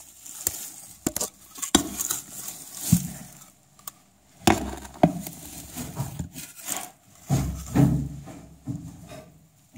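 Straw and compost being dug through and shifted in a plastic bin: irregular rustling and scraping, with sharp knocks against the plastic sides and a louder stretch of scraping near the end.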